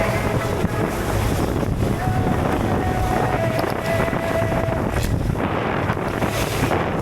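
A small boat under way on open ocean: the engine running steadily under a thick rush of wind on the microphone and water against the hull. A faint steady whine shows above it from about two seconds in.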